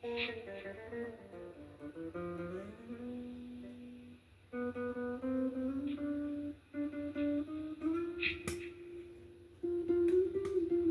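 A guitar played solo, picking single notes and chords. One note slides up in pitch about two seconds in, and the notes bend near the end. There is one sharp click about two-thirds of the way through.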